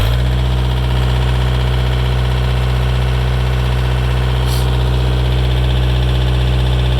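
Case 560 trencher's Kubota diesel engine running steadily just after starting, loud and even.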